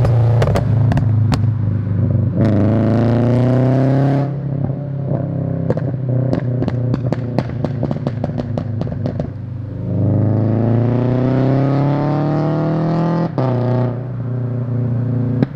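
Scion FR-S flat-four engine, breathing through a catless front pipe and tuned for pops, revving up twice under acceleration with the pitch rising steadily. Each pull cuts off sharply on lift-off and is followed by a run of sharp exhaust pops and crackles on the overrun, the longest lasting about five seconds.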